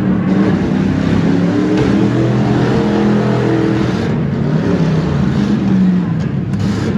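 Stock V8 engines of demolition derby cars running and revving, several engine notes overlapping and rising and falling in pitch.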